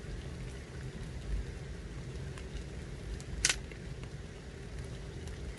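Light rain ticking over a steady low rumble, with one sharp click about three and a half seconds in.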